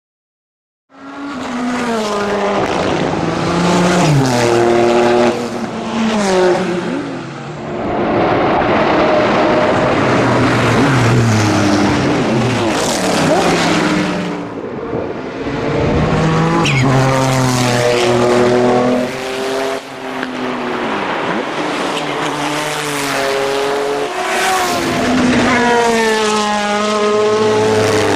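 Race car engines at high revs passing the track one after another, including the Porsche 993 GT2 EVO's twin-turbo flat-six. The pitch climbs through each gear and steps down at the gear changes, starting about a second in.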